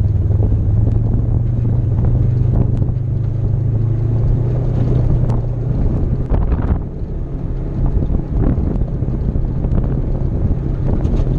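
Polaris RZR side-by-side engine running steadily while driving over gravel, with wind on the microphone and scattered knocks from stones and bumps. The engine eases off briefly about seven seconds in, then carries on at a lower pitch and level.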